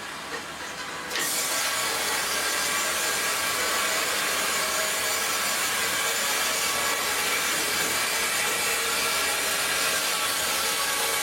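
Horizontal band sawmill blade cutting through a log: a steady, dense hiss that sets in suddenly about a second in, as the blade enters the wood.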